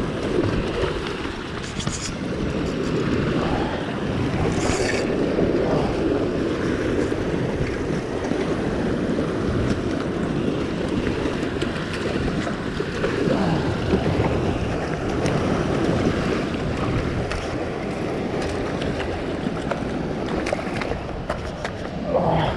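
Ocean swell washing and breaking against a sandstone rock ledge, a steady rushing mixed with wind buffeting the microphone.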